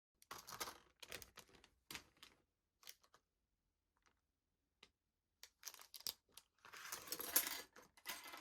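Slime being handled by hand, making crinkly, crackling clicks in short bursts, with a longer run of crinkling near the end.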